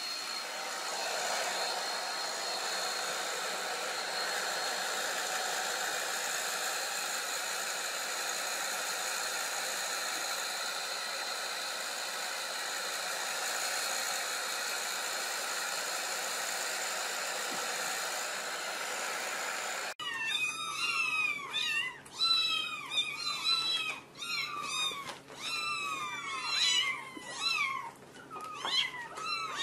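A hair dryer blows steadily, then gives way abruptly about two-thirds of the way in to a litter of kittens meowing over one another: many high calls, each falling in pitch.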